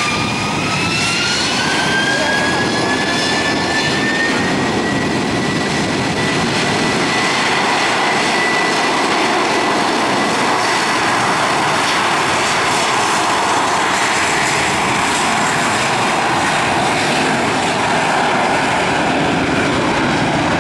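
Airbus A321-231's IAE V2500 turbofans spooling up to takeoff thrust: a rising whine that levels off about four seconds in. The engines then run at full power as a loud, steady jet noise while the airliner accelerates down the runway for takeoff.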